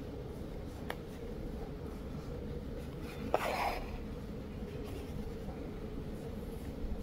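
Embroidery needle and thread worked through cotton cloth in lazy daisy stitches: a faint click about a second in, then one short rasping pull of thread through the fabric about three and a half seconds in, over a steady low hum.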